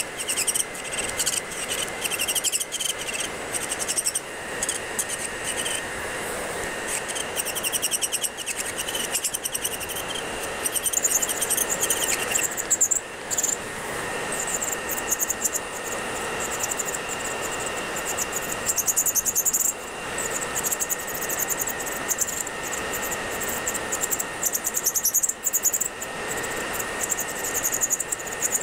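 Electric nail drill (e-file) running, its bit grinding gel off a fingernail: a steady high whine with a scratchy filing noise that flickers as the bit is worked over the nail.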